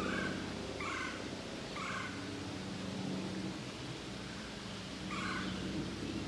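Short, clipped animal calls: three about a second apart, then one more near the end, over a low steady hum.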